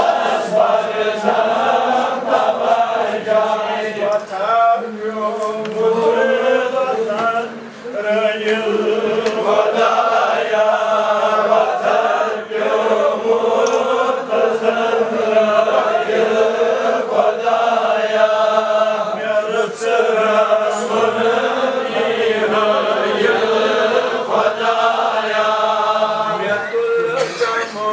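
Several voices chanting a devotional recitation together, continuous and melodic, with a brief break about eight seconds in.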